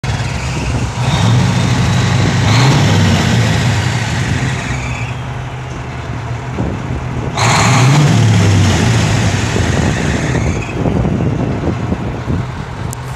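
Caterpillar 3408 V8 diesel in a Kenworth truck, revved while standing still. There are two throttle run-ups, about a second in and again about seven seconds in, each rising in pitch and then falling back toward idle. A faint high whistle winds down after each.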